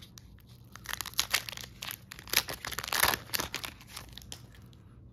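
Foil wrapper of a trading-card booster pack crinkling as it is torn open and the cards are pulled out: a dense run of irregular crackles starting about a second in, loudest around three seconds, then dying away.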